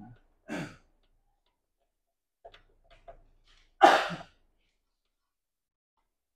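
A few light clicks of buttons being pressed on a Toshiba CD radio's top panel. About four seconds in comes a short, loud rush of noise.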